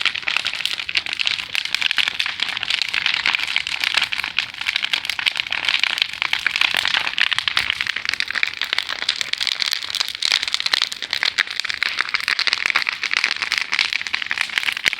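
Large bonfire of demolition scrap crackling and popping steadily, with a dense stream of small snaps.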